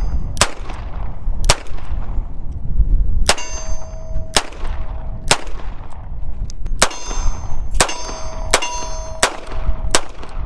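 Snub-nosed .38 Special revolvers, a Colt Detective Special and a Smith & Wesson Model 36 Chiefs Special, fired about ten times at an uneven pace. Several shots are followed by the ringing clang of a hit steel target.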